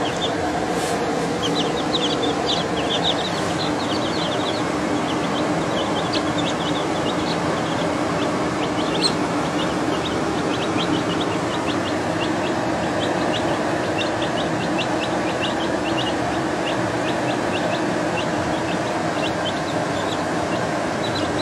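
Baby chicks peeping: many short, high cheeps, several a second, throughout. Underneath them is a steady, fairly loud background noise.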